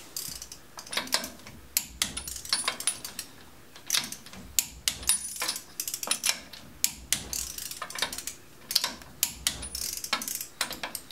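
Socket ratchet clicking in short runs with brief pauses, tightening the lug nuts that hold a wheel spacer to the hub.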